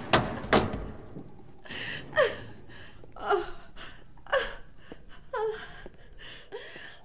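A woman sobbing: a breathy gasp followed by a short whimper that falls in pitch, repeated about once a second. Two sharp knocks come in the first half-second, before the sobbing starts.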